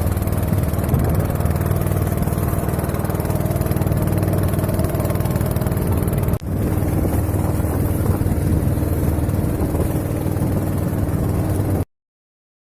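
A motor engine running steadily at a constant speed, with a high hiss of wind or water over it. It drops out for an instant about six seconds in and stops abruptly near the end.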